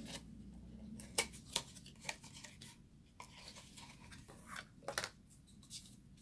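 A small cardboard box being handled and a roll of gold hot foil taken out of it: scattered light clicks and taps with faint rustling.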